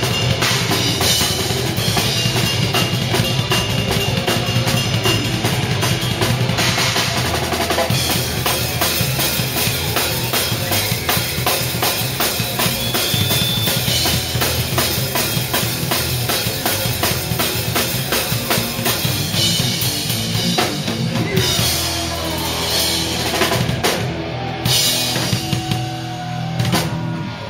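Drum kit played fast and hard in a live band, with bass drum, snare and cymbal strokes up front and the band's music behind.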